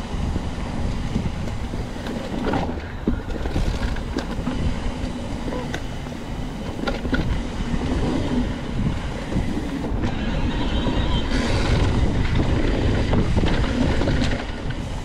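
Mountain bike rolling over a dirt trail: tyre rumble and rattling from the bike, with wind on the microphone. It grows louder for a few seconds near the end.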